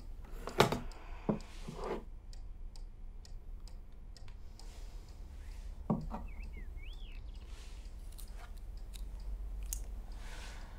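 A few sharp clicks and knocks in the first two seconds, as a coffee maker and its jug are handled. About six seconds in comes a click from a portable CD player, then a short high chirp, over a low steady hum.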